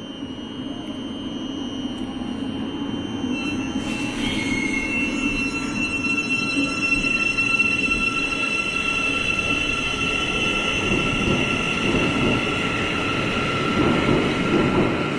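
A Thameslink Class 700 electric train pulls out of the platform: a steady high electric whine over a low rumble of wheels on rail, growing louder as it gets under way.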